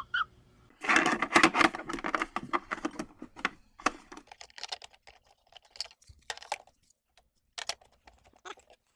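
Clicks and rattles of a plastic appliance casing and small parts being handled and fitted together during reassembly, a dense clatter for the first few seconds, then scattered single clicks.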